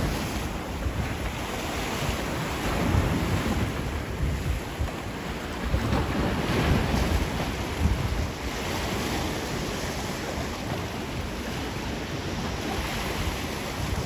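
Small waves washing and breaking against shoreline rocks, with wind buffeting the microphone as a low rumble underneath. The wash swells louder every few seconds as waves come in.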